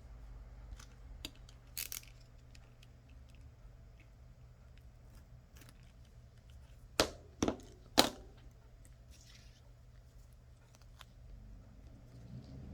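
Small hand-work handling noise: scattered faint clicks and ticks of tweezers and adhesive strips being placed, with three sharp clicks close together about seven to eight seconds in.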